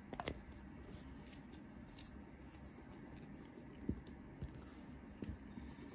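Quiet room tone with a few faint, scattered small clicks and taps from a nail polish bottle and its brush-cap being handled.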